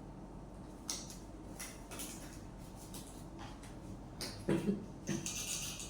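Quiet handling noises: a few scattered light clicks and knocks, then two short low thuds about four and a half seconds in, followed by a brief hiss near the end.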